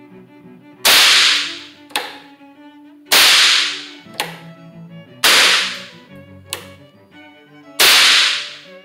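Percussion caps popping on the nipples of a black powder revolver as the hammer falls on them: four sharp pops about two seconds apart. About a second after each pop comes a smaller click as the hammer is thumbed back to cock for the next cap.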